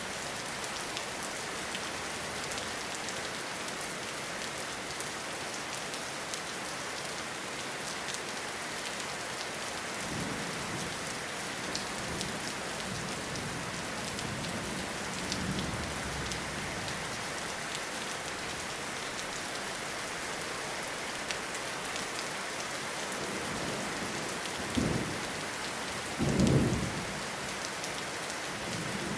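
Steady rain falling on a forest, a continuous hiss. Low rumbles of thunder come in about a third of the way through, and two louder, shorter rumbles come near the end.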